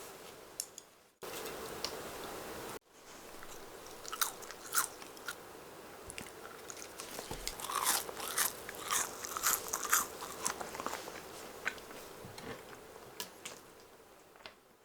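A person chewing crunchy food close to the microphone, a run of short crisp crunches that grows busier a few seconds in and then thins out.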